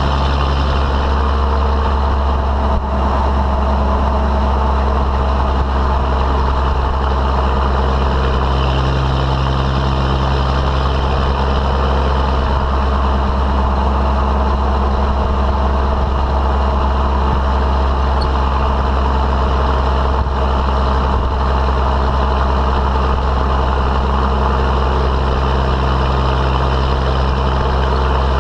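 12-valve Cummins 5.9-litre inline-six turbo diesel running through a 4-inch straight-pipe exhaust, heard right at the tailpipe: a steady, deep drone at cruising speed while towing a load, with tyre and road noise underneath.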